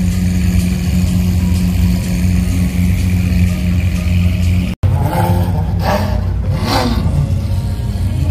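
Car engine running with a steady low drone, then, after an abrupt cut a little past halfway, a car engine revving up and down several times.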